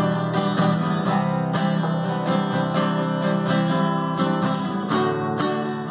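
Two acoustic guitars, one steel-string and one nylon-string classical, strummed together in a steady rhythm.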